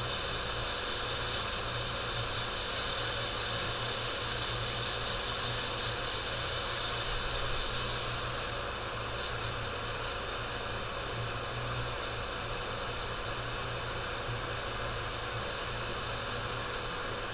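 Steady whooshing fan noise with a low electrical hum from running microsoldering bench equipment, unchanged throughout; no scraping is distinct above it.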